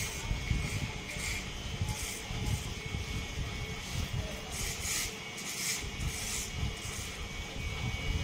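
Electric hair trimmer running with a steady hum, giving a brief higher rasp several times as it is passed through the hair.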